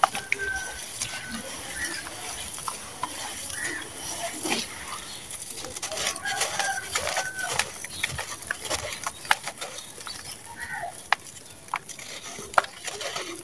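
Hands crushing and crumbling dry sand-cement lumps, gritty crunching broken by many sharp cracks as pieces snap, with crumbs falling into a bowl holding a little water. A few short animal calls sound faintly in the background.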